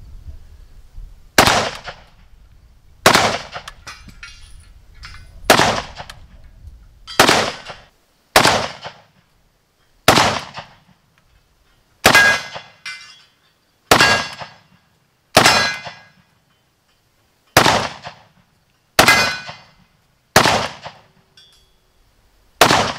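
North Korean Type 68 rifle (an AKM copy in 7.62×39mm) fired semi-automatic, about thirteen single shots spaced one and a half to two seconds apart. Steel targets ring after many of them as the shots hit.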